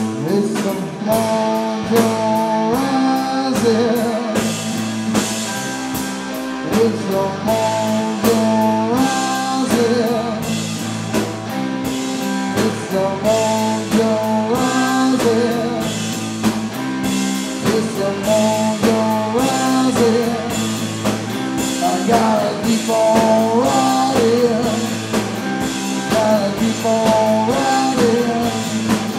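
Live rock band playing: electric guitar, electric bass and drum kit, with a melodic lead line that bends in pitch over a steady beat.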